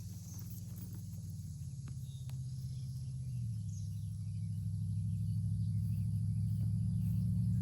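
A low, steady hum with a few layered pitches, growing gradually louder and shifting up slightly a little over three seconds in, over a faint high, steady chirring of insects.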